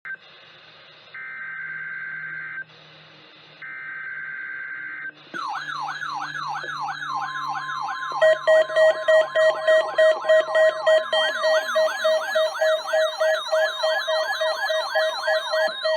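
NOAA Weather Radio emergency alert: two bursts of Emergency Alert System (EAS) digital header tones with radio hiss between them. About five seconds in, a weather-alarm siren starts, falling in pitch and repeating several times a second. Soon after, the steady 1050 Hz warning alarm tone and a loud pulsing beep join it, marking a routine weekly test of the alert system.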